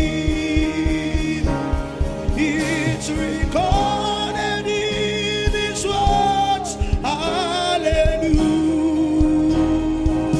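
Gospel worship song: voices singing sustained, wavering melody lines over a band with a steady beat.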